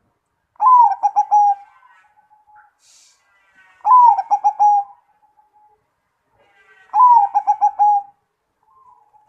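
Zebra dove (perkutut) cooing its song three times, about three seconds apart. Each phrase opens with a short rising-falling note, runs into a quick string of four or five clipped coos, and trails off in a softer held coo.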